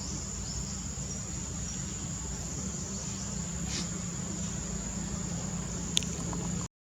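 Steady high insect drone over a low steady rumble, with a single sharp click about six seconds in.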